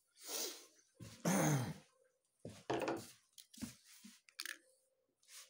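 Kitchen handling noises: a pull-out drawer sliding shut, then a few short knocks and rustles as a plastic bowl and a crinkly chip bag are set down on a wooden table.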